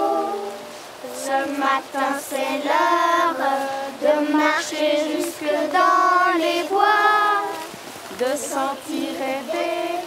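Young children singing a song in short phrases with held notes.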